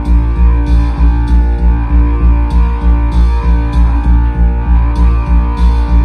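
F&D F6000X 5.1 home theater system playing guitar rock music with a heavy bass beat, about two deep thumps a second from the subwoofer.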